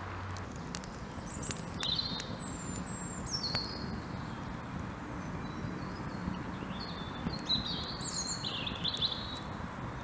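A songbird singing a string of short, varied high warbling phrases over a steady low background noise, with a few faint sharp clicks in the first few seconds.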